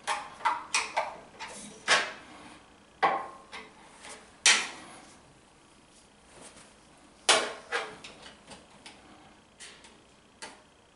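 Metal hand tools clinking and knocking as they are handled and set down: a run of sharp clinks in the first few seconds, two more about seven seconds in, then a few lighter ticks.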